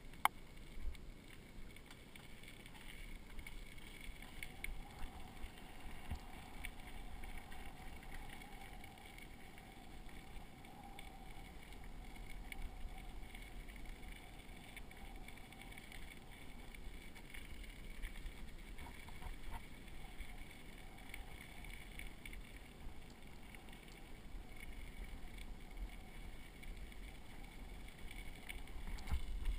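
Bicycle rolling along a gravel trail: a steady low rumble of the tyres on the crushed stone, with a sharp click right at the start and a louder stretch near the end.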